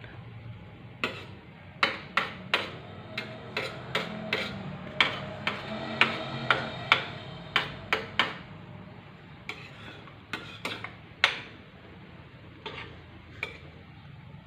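Cooking utensil knocking and scraping against a large pot of opor ayam while it is stirred, a string of irregular sharp knocks, one or two a second, that thin out near the end.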